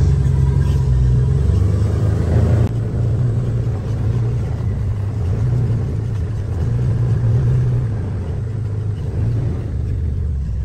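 Side-by-side utility vehicle's engine running while it is driven, a steady low hum that eases a little about three seconds in.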